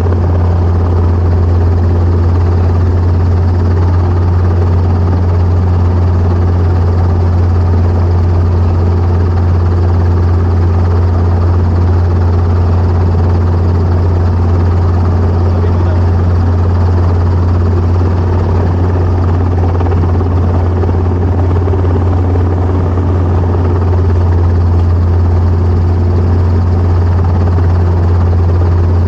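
Training helicopter's engine and rotors running, a loud steady low drone with an even hum beneath it that holds unchanged throughout.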